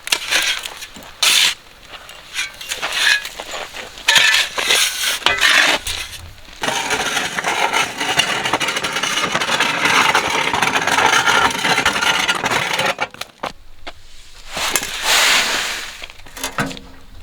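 Rough scraping and knocks, with a stretch of steady rushing noise of about six seconds in the middle.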